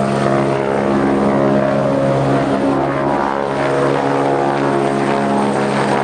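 Steady, loud engine drone holding one even pitch.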